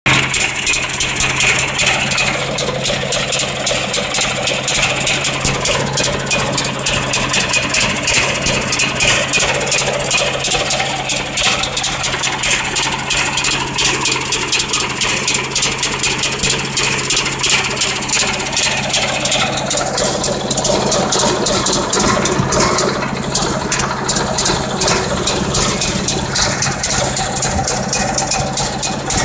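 Onan Emerald Plus 5000 RV generator idling badly: a steady hum under rapid exhaust pulses, the sign of a set that is not running right. About two-thirds through, the sound changes as it shifts from the exhaust pipe to the open generator bay.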